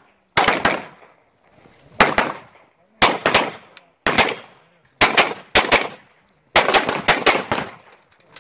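Handgun shots fired rapidly in an IPSC stage run, mostly as quick pairs about a second apart, each shot followed by a short echo. A faster string of several shots comes near the end.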